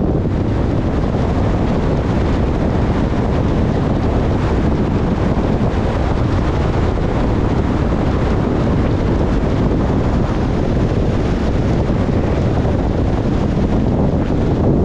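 Steady rumbling wind noise on the dashcam microphone, mixed with the road noise of a car driving.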